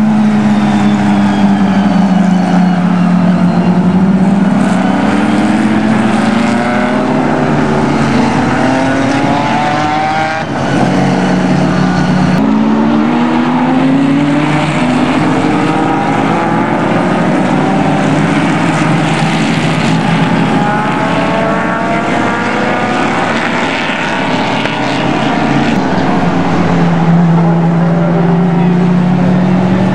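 Sports-prototype race cars passing one after another at racing speed. Their engines rise and fall in pitch through the gears and overlap as each car comes by, and the sound dips briefly about ten seconds in.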